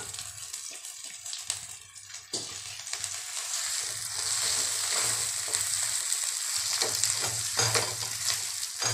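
Mashed boiled potato frying in hot ghee in a nonstick kadhai, sizzling steadily while a spatula stirs it and now and then scrapes and taps the pan. The sizzle grows louder about halfway through.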